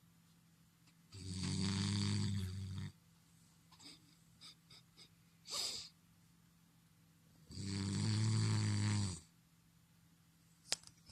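Beagle snoring: two long snores about six seconds apart, each lasting nearly two seconds. A short breathy puff falls between them, and there is a sharp click near the end.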